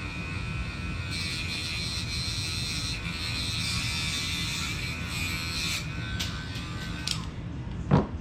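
Dremel rotary tool with a cutting disc running with a steady whine. From about a second in to nearly six seconds in it grinds through a flap pushrod, cutting it to length, then spins on briefly and stops a little after seven seconds. A short thump comes just before the end.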